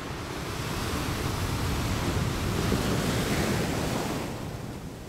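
Ocean surf: a wash of rushing noise that swells for about three seconds and fades near the end.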